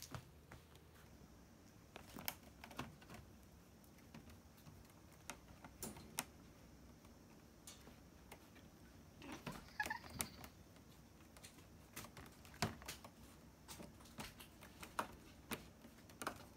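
Cats moving about: faint, scattered taps and clicks, a dozen or so spread unevenly, with a brief cluster about ten seconds in.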